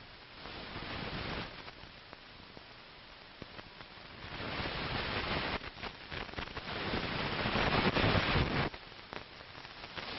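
Hiss and crackle of an old film soundtrack with scattered clicks, swelling briefly about half a second in, then louder from about four seconds in until it drops off suddenly near the end.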